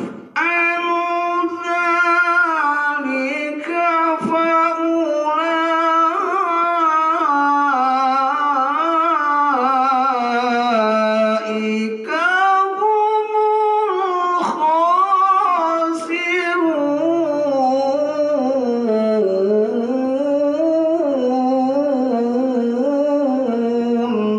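A man reciting the Quran in melodic tilawah style into a microphone: long held phrases whose pitch waves and slides in ornaments, broken by a few short pauses for breath.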